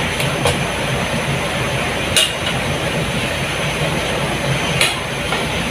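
Steady hiss of stovetop cooking, with a few sharp clinks of a metal utensil against the cooking pot.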